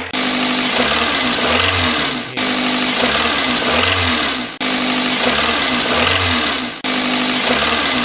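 Toyota VVT-i 16-valve four-cylinder engine running and being revved, with a brief rise in the engine note in each of about four repeats of the same short stretch. It is meant to carry an intermittent small hammering knock, which the owner estimates comes from worn connecting rod or crankshaft bearings.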